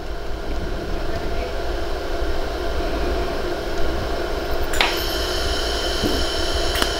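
Steady hum of a LaserStar laser welding machine running. About five seconds in there is a single sharp click, and a high thin whine joins the hum after it.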